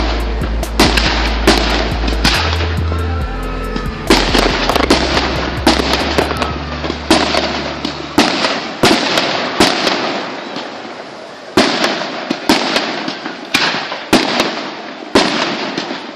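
Fireworks display going off: a rapid series of sharp bangs and bursts throughout. Music with a low bass line plays under the bangs until about halfway through.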